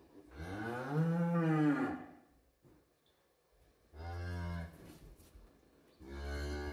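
A dairy cow lowing just after calving, over her wet newborn calf. She gives three calls: a long one that rises and falls, then two shorter ones.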